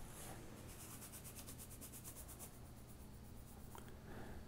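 Faint grainy trickle of table salt poured from a canister into a measuring spoon, heard as quick light ticks in the first couple of seconds, over a steady low electrical hum.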